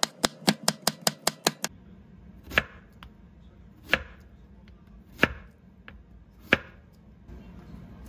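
Chef's knife chopping on a wooden cutting board: a quick run of strokes, about five a second, dicing red bell pepper, then, after a short pause, four single slow cuts through Korean zucchini, a little over a second apart.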